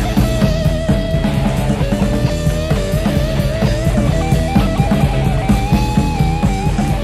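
Rock band playing an instrumental passage: a lead line holds long notes with some vibrato over bass and drum kit.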